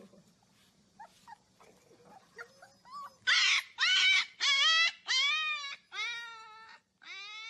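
Husky puppy howling: a few faint squeaks, then from about three seconds in a run of six loud, short howls, each bending down in pitch, the last one weaker.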